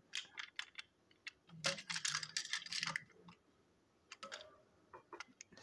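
Handling noise from a plastic toy engine and tender turned over in the hands: scattered small clicks and rattles of plastic parts, with a denser run of rattling about one and a half to three seconds in.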